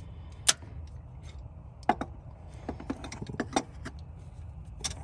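Channel-lock pliers and a spring-type hose clamp clicking and clinking as the clamp is pinched and worked loose. There is one sharp click about half a second in, then a scatter of lighter clicks, over a low steady hum.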